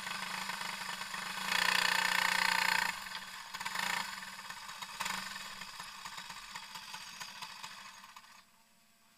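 Racing kart engine running at low speed, revved harder for about a second and a half, then blipped twice more and easing down before it cuts off suddenly near the end as the kart stops.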